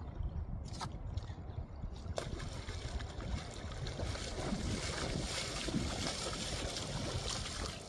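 Wind buffeting the microphone over water sloshing and splashing, the splashing growing denser about two seconds in.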